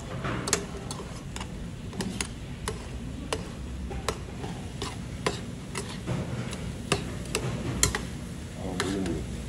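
Metal utensils stirring and tossing pork and vegetables in a wide metal pan on a tabletop burner, clinking and scraping against the pan in irregular clicks, about one or two a second.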